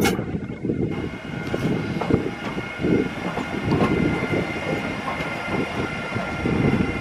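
Siemens Vectron electric locomotive rolling slowly past at close range, with a steady high whine over the low rumble of its wheels and irregular knocks as they cross the rails. A short sharp click comes right at the start.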